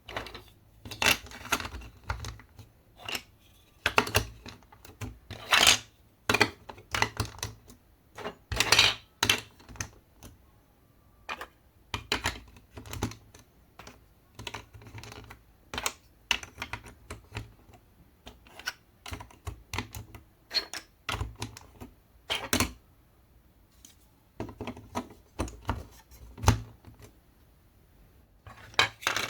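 Marble run track pieces being handled, set down and fitted together, making irregular clicks and knocks, sometimes in quick clusters, with short pauses between.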